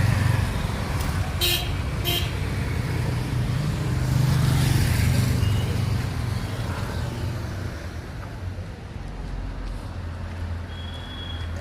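Road traffic running past, with two short horn toots about a second and a half and two seconds in.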